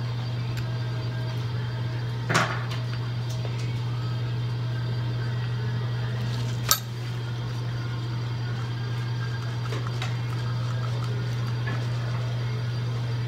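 Steady low hum of dental suction running. Two short sharp clicks of metal dental instruments come about two and a half and seven seconds in.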